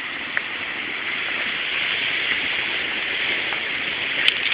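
Steady rushing noise, a little louder from about a second in, with a single sharp click near the end.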